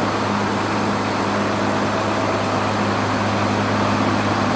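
Mycom compressor and a second machine running together on a test run: a steady mechanical drone with a constant low hum and a higher tone above it.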